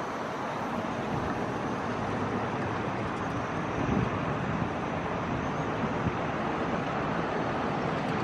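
Diesel locomotive hauling a container freight train, heard approaching from a distance: a steady rumble of engine and wheels on rail that grows slowly louder.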